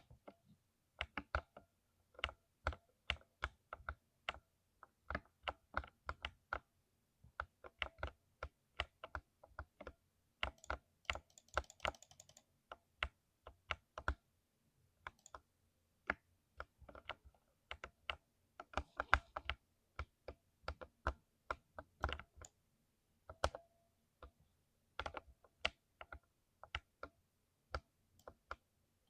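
Typing on a mechanical keyboard with lubricated switches: irregular runs of keystroke clicks with short pauses between them, and a denser flurry about eleven seconds in.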